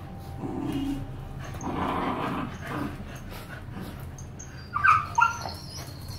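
Two dogs growling at each other as they square off in play-fighting, then two short, sharp barks about five seconds in.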